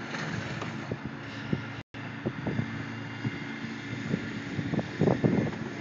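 Wind noise on a phone microphone over a steady low engine-like hum, with scattered light knocks and thumps that cluster about five seconds in.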